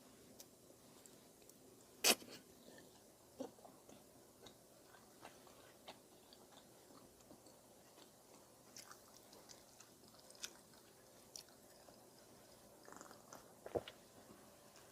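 Close-up mouth sounds of eating udon noodles: quiet chewing with scattered short clicks, the sharpest about two seconds in and another near the end.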